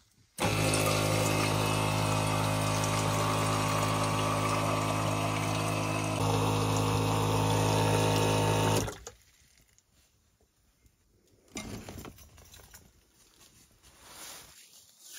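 A small electric water pump humming steadily while water pours from a camper's tap into a metal kettle. It starts about half a second in and cuts off suddenly after about nine seconds, followed by a few faint handling sounds.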